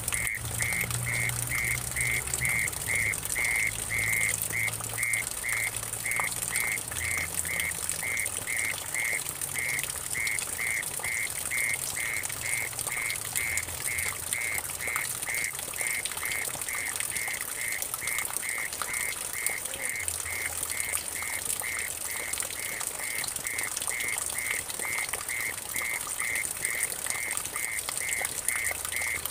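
Mole cricket calling in a steady rhythm of short, high-pitched pulses, about two a second, over water trickling and splashing into a puddle.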